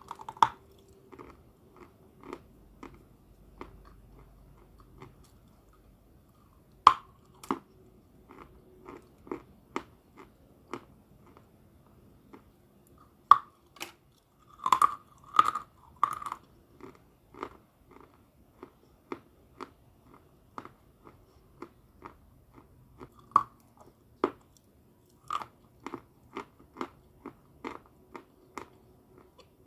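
A person biting and chewing crunchy chalk close to the microphone: sharp, irregular crunches about one or two a second, with a quick run of loud crunches around the middle.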